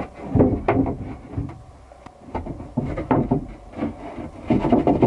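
Wooden bed-frame boards and plywood panels being handled: irregular knocks, bumps and scrapes of wood against wood as the frame is taken apart, loudest about half a second in and again near the end.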